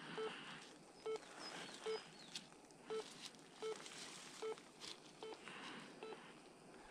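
Ground-imaging scanner beeping while scanning the ground: a short, steady low beep repeating evenly about every 0.8 seconds, with faint rustling between beeps.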